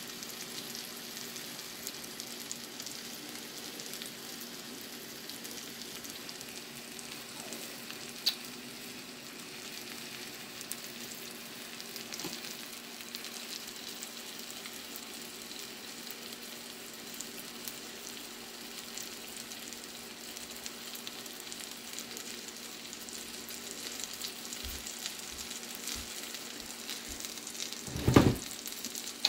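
Halibut steaks and cherry tomatoes frying in garlic butter in a pan: a steady sizzle with scattered small pops and crackles, over a faint steady hum. A sharp click about eight seconds in, and a loud low thump near the end.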